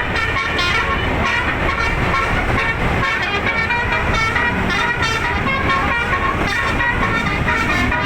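Telolet basuri, a bus's multi-trumpet musical air horn, playing a fast melody of short stepping notes without a break, over a low rumble.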